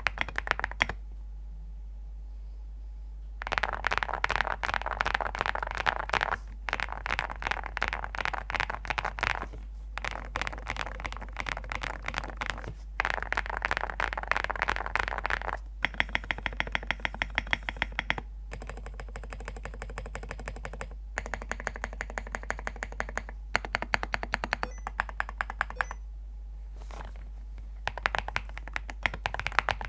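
Typing on a ZOOM65 mechanical keyboard with Graphite Gold switches, a PC plate and full foam: rapid runs of key taps lasting a few seconds each, separated by brief pauses, with one longer pause near the start.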